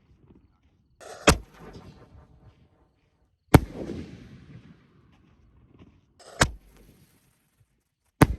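Fireworks going off: four sharp bangs two to three seconds apart, a couple of them preceded by a short hiss, each followed by a rumbling echo.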